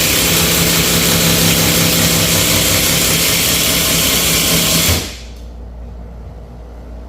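Ryojegk 21-volt 1/2-inch cordless impact driver running under load as it drives a bolt through a 4x4 post, loud and steady, then stopping abruptly about five seconds in.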